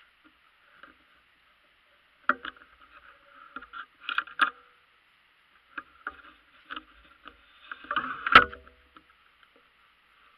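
Handling noise picked up by an action camera mounted on a bow's stabilizer: scattered knocks and rubbing as the bow is moved and handled, with a sharp clack about eight seconds in, the loudest sound.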